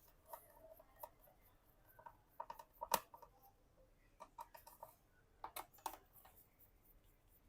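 Faint, scattered small clicks and taps of a screwdriver working the screws out of a laptop's bottom cover, with the loudest tap about three seconds in.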